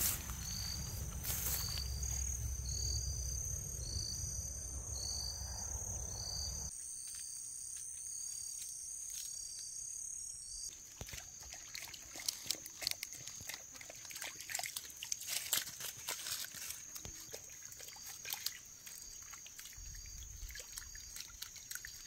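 Countryside ambience dominated by a steady high insect drone. Short chirps repeat about twice a second over the first several seconds. A low rumble cuts off about seven seconds in, and scattered crackling clicks follow later.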